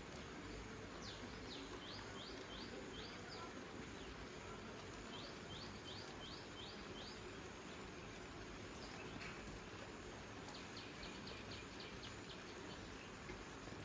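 A small songbird singing phrases of quick, repeated high falling notes, three phrases in all, the last one faster, over a steady soft outdoor hiss.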